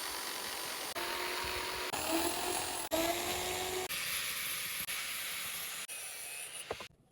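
Power tool grinding and abrading the rusty metal of an old pulley, a steady harsh hiss with a faint whine for a few seconds, heard as a string of short cuts about a second long.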